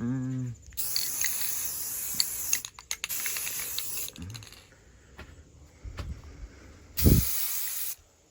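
Aerosol spray-paint can spraying in three short bursts of hiss, the last opening with a low thump. A brief pitched call sounds right at the start.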